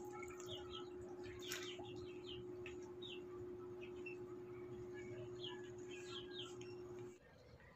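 Small birds chirping, with many short, scattered calls over a faint background. A steady low hum runs underneath and stops just before the end.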